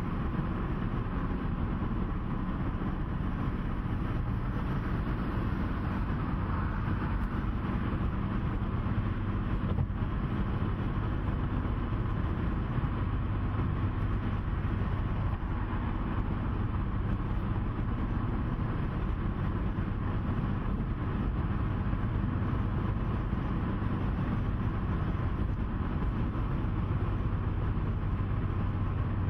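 Steady low rumble of a vehicle travelling at motorway speed, engine and tyre noise heard from on board.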